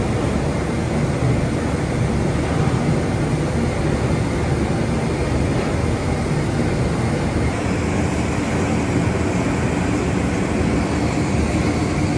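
Heavy factory machinery running steadily with a dense, low rumble.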